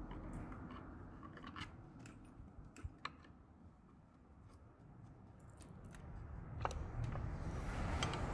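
Faint, scattered metallic clicks and scrapes of a long screwdriver prying and levering at an engine's oil pump housing to work the stuck oil pump loose. The taps come irregularly, thin out in the middle, and a rustling scrape builds near the end.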